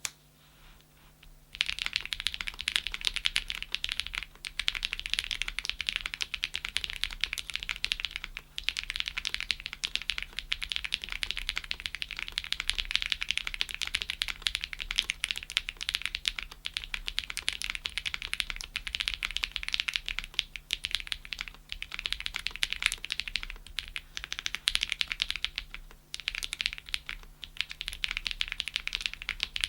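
Fast typing on a Graystudio Space65 custom mechanical keyboard with TTC Holy Panda tactile switches on a POM plate, a dense run of clacky keystrokes with a few brief pauses, starting about a second and a half in.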